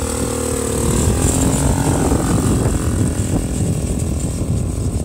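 Off-road dune buggy's engine running with a steady note, then getting louder and rougher about a second in as the buggy pulls away over the dirt.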